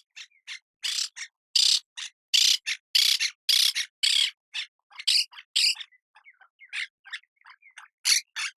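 A parrot giving a quick, irregular run of short, harsh squawks. About six seconds in they give way to softer, quieter chirps, and loud squawks resume near the end.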